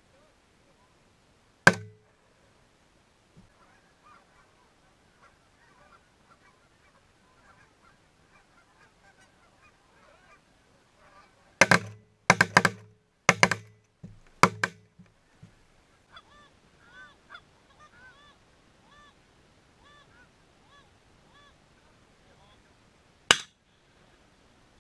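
Canada geese honking in repeated arched calls, broken by shotgun blasts: a single shot about two seconds in, a rapid volley of five or six shots near the middle, and one more shot near the end.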